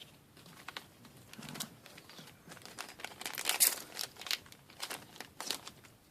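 Crinkling and rustling of booster-pack wrappers and trading cards being handled: irregular quick crackles that grow busier about halfway through, with the loudest around three and a half seconds in.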